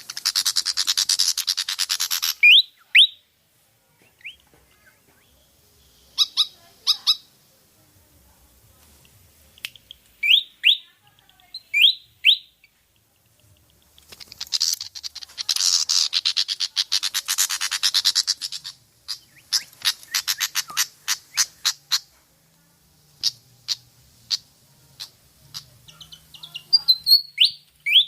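Malaysian pied fantail calling. There are two long bursts of rapid, harsh chattering, a few seconds each, and between them scattered sharp ticks and short, upward-sweeping squeaky notes.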